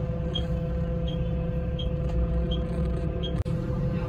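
Inside a tour coach: steady low engine rumble and hum, with a short high beep repeating about every three quarters of a second, five times, until the sound briefly cuts out near the end.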